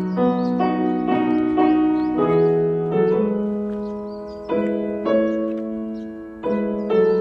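Background piano music: slow, gentle piano notes, each struck and left to ring and fade.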